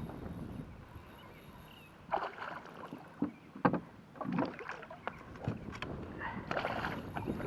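Irregular splashes and knocks of water against a kayak while a hooked bass is fought close to the boat, starting about two seconds in after a quieter stretch, with a few sharp clicks.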